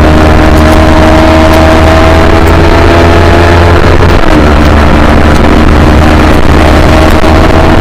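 Yamaha R3's 321 cc parallel-twin engine running hard under load, its pitch slowly climbing. About four seconds in there is a brief break in the note, a shift or throttle change, and then it climbs again. Heavy low wind rumble on the microphone.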